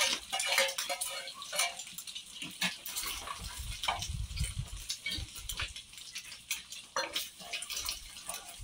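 Eggs with onion frying in hot oil in a clay pot, crackling and sizzling. In the middle a spatula stirs them, knocking against the pot.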